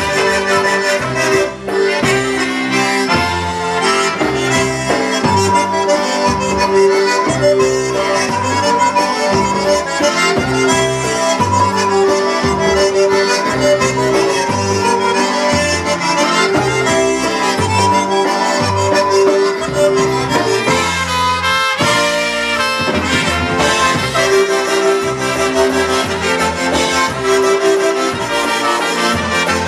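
Live polka band playing an oberek, a fast dance in triple time, with concertina and accordion carrying the melody over trumpets, electric bass and drums.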